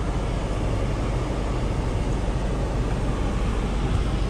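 Steady low rumble of a Lamborghini Urus heard from inside the cabin: engine and road noise at an even level.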